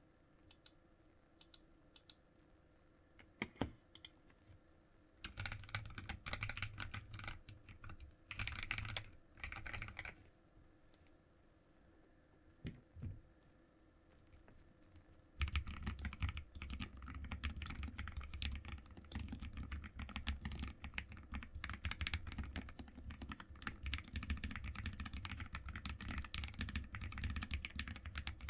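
Typing on a mechanical keyboard with linear switches, dampened by a silicone sheet laid between the PCB and the top plate. A few separate keystrokes at first, then short runs of typing, then steady fast typing from about halfway through.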